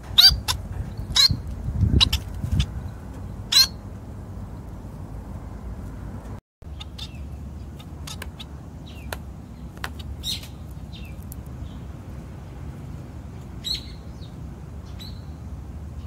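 Society finches (Bengalese finches) giving short, sharp high chirps, several loud ones in the first few seconds. After a brief dropout, fainter chirps come scattered now and then.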